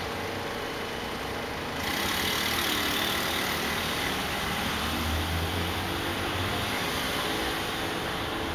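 Cabin sound of a Vienna ULF B low-floor tram standing or barely moving: a steady hum and hiss from its onboard equipment. A louder hiss sets in about two seconds in and holds.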